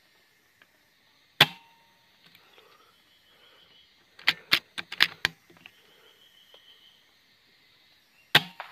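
Two air rifle shots, each a single sharp crack, one about a second and a half in and one near the end. Between them comes a quick run of about five sharp clicks, with faint bird trills in the background.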